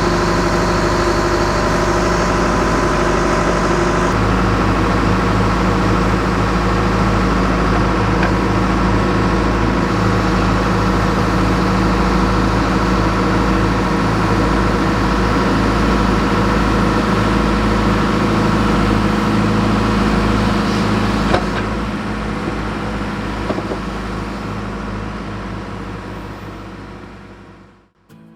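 Engine of heavy equipment running steadily, its tone shifting about four seconds in, then fading away and cutting off just before the end.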